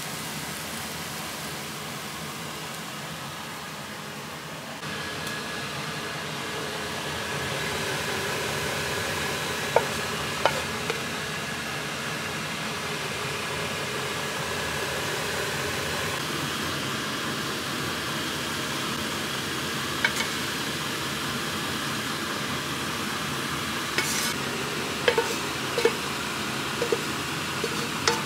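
Stir-frying in a nonstick pan: steady sizzling as a wooden spatula turns the food, with a few sharp knocks of the spatula on the pan, several close together near the end.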